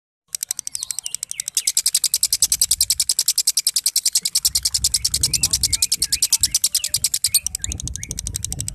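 Fischer's lovebird singing its 'ngekek': a long, unbroken run of fast, harsh, ratchet-like chattering notes, about ten a second, in the erratic 'konslet' style.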